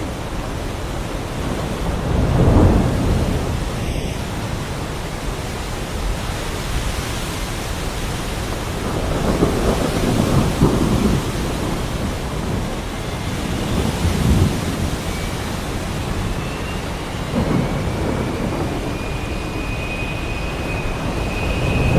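Heavy rain pouring steadily while thunder rolls in low rumbling swells, four times over. A thin high whine comes in during the second half and grows toward the end.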